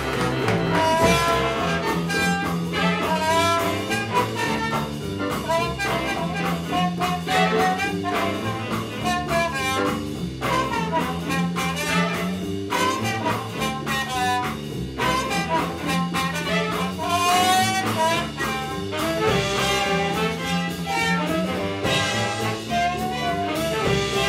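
Jazz big band playing swing live, saxophones, trumpets and trombones together over upright bass, with a low riff that comes round about every four seconds.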